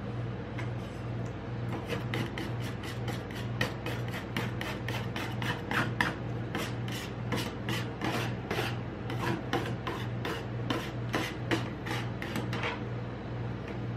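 Metal spatulas chopping and scraping freezing Dr Pepper on a stainless-steel rolled ice cream cold plate: a quick run of sharp scraping strokes, about three a second, starting about two seconds in and stopping near the end, over a steady low hum.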